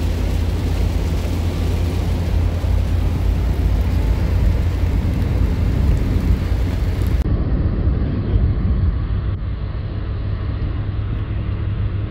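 Car interior noise while driving: a steady low drone of engine and tyres on the road. About seven seconds in the sound turns duller, but the low drone carries on.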